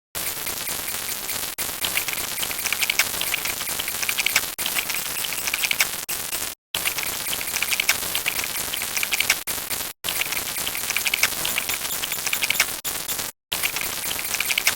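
Loud, even hiss like static or heavy rain, with a flickering crackle in it, broken by three sudden short cuts to silence.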